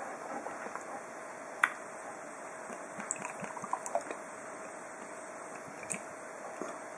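Vodka being poured from a bottle into a fermenter's airlock: a sharp click about a second and a half in, a run of small clicks and taps around three to four seconds, and a faint trickle of liquid.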